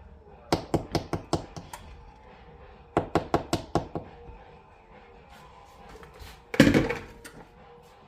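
Kitchen knocking: two quick runs of about six hard knocks each, then one louder thump near the end.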